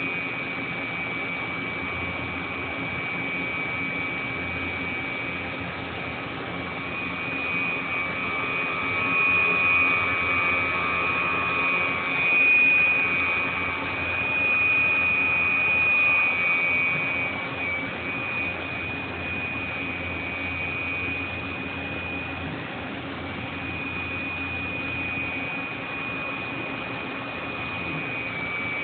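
Matsuura RA-2DC twin-spindle CNC vertical machining center running under power: a steady mechanical hum with a high, constant whine. It grows louder for several seconds in the middle, then settles back.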